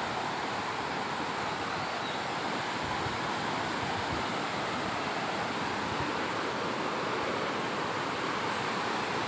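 Steady rush and slosh of muddy floodwater around someone wading waist-deep through it.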